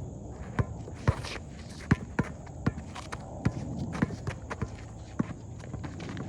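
Irregular sharp thuds, about one or two a second, from basketball play: a ball bouncing and players' footsteps on a hard court.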